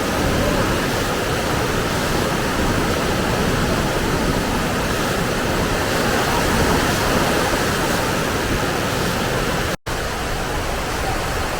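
Waterfall pouring into a pool: a steady, loud rush of falling water. It cuts out for an instant about ten seconds in.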